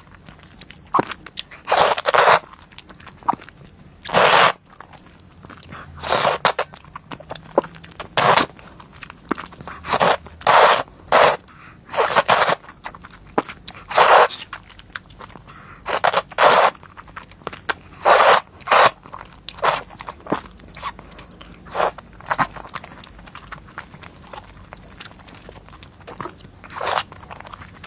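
Close-miked crunchy food being bitten and chewed, with loud crackling crunches every second or two.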